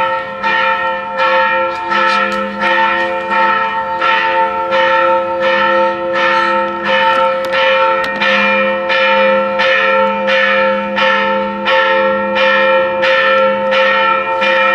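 Church bells ringing in a steady, rapid peal of about two strikes a second, several bells of different pitch sounding together, starting suddenly.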